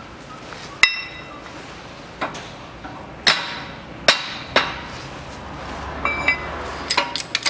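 Heavy steel press plate and steel mandrel being set down and shifted on the bed of a hydraulic shop press: several sharp metal clanks, a couple ringing briefly, then a quick cluster of knocks near the end. This is the press being set up to press a new bearing race into the axle bearing housing.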